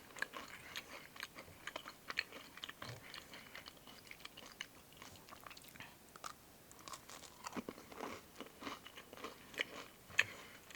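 A person chewing and crunching a sugar cookie, faint, with many small crisp crackles that ease off around the middle and a sharper crunch near the end.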